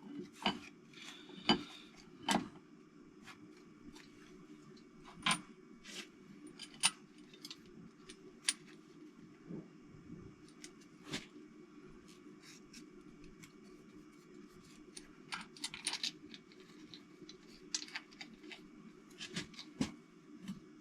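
Scattered light metallic clinks and taps of small steel engine parts and bolts being handled and set down, with a cluster of quicker clinks near the end, over a steady low hum.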